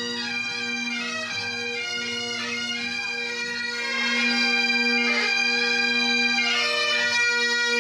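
Highland bagpipes of a pipe band playing a tune over their steady drone, louder from about four seconds in.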